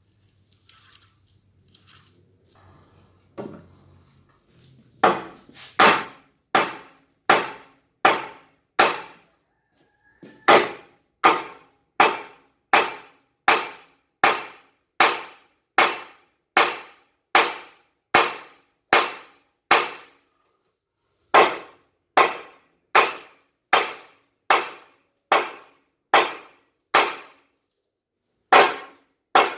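Hammer blows on the alternator's metal parts, struck at an even pace of about four every three seconds, each with a short ring. They start about five seconds in, after a few light knocks, and break off briefly twice. This is hammering parts loose while dismantling the 60 kVA AvK alternator.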